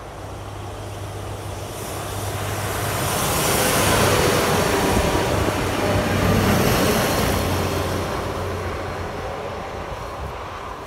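Diesel train passing close by: a steady engine hum under rolling noise that swells to a peak about halfway through and then fades away.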